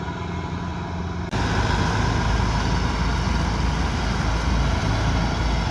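Kubota DC108X combine harvester's diesel engine and machinery running steadily. Just over a second in, the sound jumps abruptly to a louder, noisier steady running.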